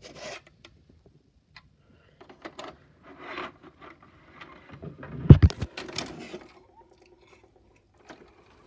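Handling noise around a VCR and a shelf of VHS cassettes: scattered clicks and scrapes, with a loud cluster of knocks about five seconds in.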